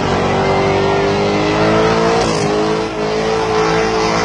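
Car engine held at high revs during a burnout, its pitch steady and creeping slightly upward, with a brief step a little over two seconds in.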